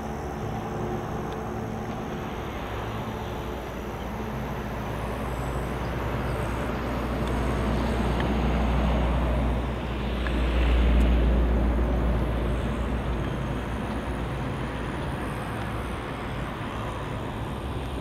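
Outdoor traffic ambience by the water: a motor vehicle passes, its low rumble and road noise swelling to a peak about eleven seconds in and then fading, over a steady low hum.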